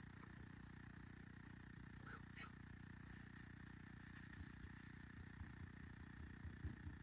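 Near silence: a steady low room hum, with a couple of faint clicks about two seconds in.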